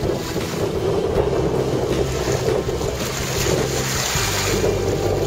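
Strong wind buffeting the microphone over water rushing and splashing past the hull of a Hobie Tandem Island sailing trimaran under way, a steady rushing noise.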